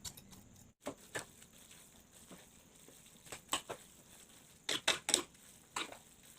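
Irregular clicks and light scrapes of a utensil against cookware as instant noodles are mixed with their seasoning, in small clusters with quiet gaps between.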